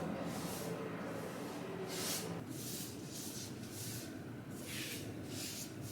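Repeated short swishing strokes, roughly one every half second, with a steady low rumble underneath. This fits a paintbrush being drawn across a door while the first coat goes on.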